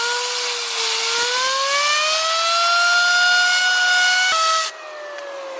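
Fidget spinner driven by a blast of compressed air from an air compressor's nozzle: loud air hiss with a whine that rises in pitch as the spinner speeds up. About four and a half seconds in the air cuts off and the whine slowly falls as the spinner coasts down.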